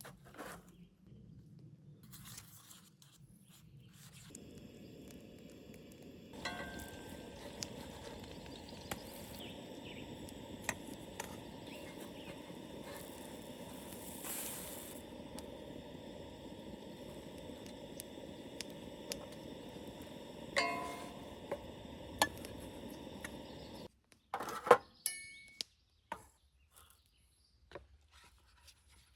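Pancakes sizzling in a pan: a steady hiss with the odd faint click. It cuts off suddenly near the end, and a few sharp knocks follow.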